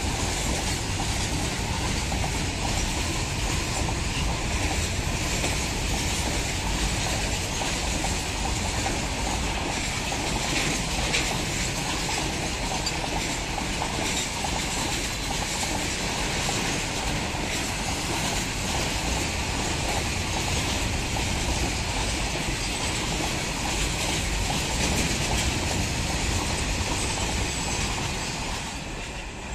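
Freight train of open steel wagons passing close by, its wheels running steadily on the rails. The sound eases off just before the end as the train draws away.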